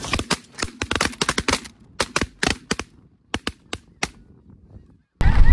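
A rapid volley of 12-gauge shotgun fire from a line of hunters, more than twenty shots overlapping and in quick succession, thinning into two smaller bursts and stopping after about four seconds. Shortly before the end it cuts suddenly to a loud low rumble with snow geese honking.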